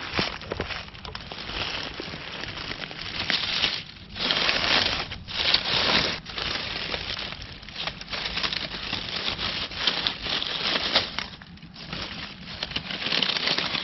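Dry dead leaves crunching and rustling under footsteps and body movement, in irregular bursts with a few short pauses.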